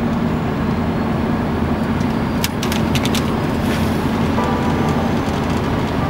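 Scania truck heard from inside the cab while driving at a steady speed: a continuous engine drone with tyre and road noise. A few sharp clicks come about halfway through.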